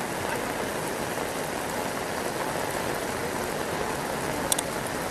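Heavy rain falling steadily, an even hiss of downpour. Near the end come a couple of sharp clicks.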